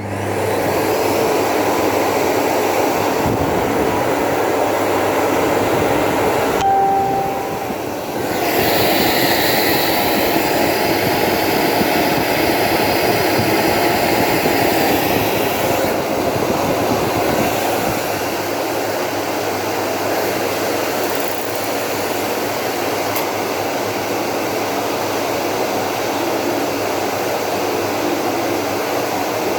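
Philips 7000 series cyclonic vacuum cleaner switched on and running with a loud, steady rush of motor and airflow. About seven seconds in the rush dips briefly with a short whistle, then turns hissier for several seconds before settling.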